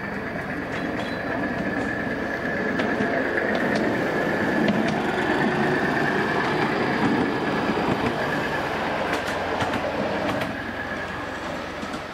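Battery-electric miniature locomotive and riding car running along a raised track, wheels clicking over the rail joints with a steady high whine. It grows louder as it passes, peaking in the middle, then fades.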